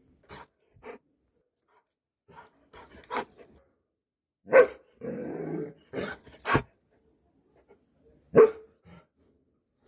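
Brown-and-rust Doberman Pinscher barking several times in short, separate barks, the loudest about halfway through and again near the end.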